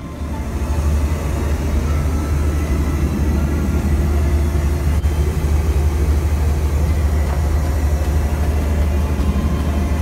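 Steady in-flight cabin noise of a Boeing 737, a loud, even low rumble of engines and airflow heard from inside the aircraft lavatory. It swells up over the first second.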